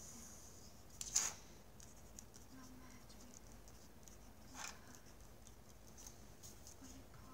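Pen scratching across paper while writing and drawing lines, with two louder strokes, one about a second in and one a little past halfway.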